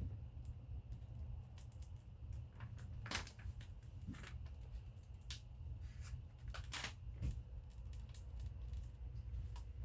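Scattered soft scuffs and rustles of a vinyl decal being worked onto a wet car door, with two louder scrapes about three and seven seconds in, over a steady low rumble.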